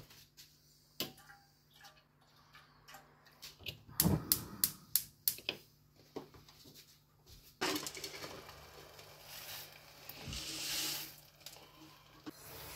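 Kitchenware handled in a small space: scattered clicks, a quick run of sharp knocks about four seconds in, then a steady hiss for about three seconds.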